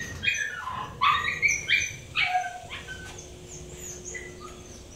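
Dogs barking and yipping: a quick string of short, high-pitched barks that thins out about three seconds in.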